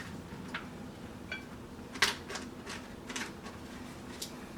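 Light, scattered clicks and clinks of kitchen utensils and dishes being handled while pikliz vegetables are put into a container, about six sharp taps over a faint steady hum.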